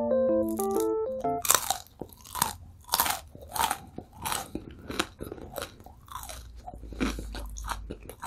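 Close-up crunchy chewing of a sakura mochi pressed crisp in a waffle maker, a steady run of crunches about every half second or more. A short electric piano melody ends about a second in.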